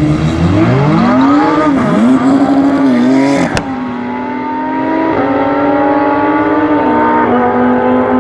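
Lamborghini Huracán Performante and Porsche 911 Turbo engines at a drag-strip launch. The engines rev up and down on the line for the first few seconds, and a sharp click comes about three and a half seconds in. The cars then accelerate hard, the pitch climbing steadily and dropping at two upshifts, about five and seven seconds in.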